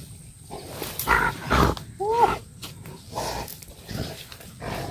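A caught wild hog, held down on the ground, gives harsh grunts in several bursts as it struggles, the loudest about a second in, with one short high cry that rises and falls about two seconds in.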